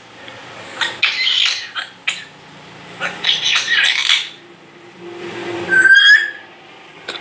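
African grey parrot vocalising: two harsh, rasping bursts of mimicry, then a short, loud whistle about six seconds in.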